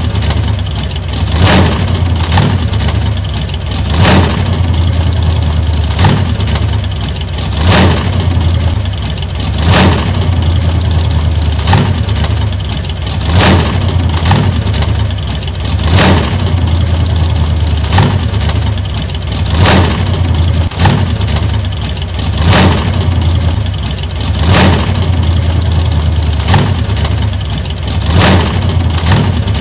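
1940s antique car engine running with a steady low hum, broken every two to three seconds by a brief louder surge.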